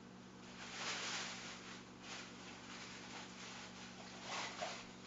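Plastic cups being handled: rustling and scraping noises, louder about a second in and again near the end, over a steady low electrical hum.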